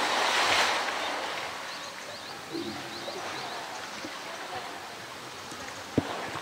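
Pool water crashing and splashing back down just after a polar bear's dive, fading within about a second to gentle water movement as the bear swims with a float toy. A single sharp knock near the end.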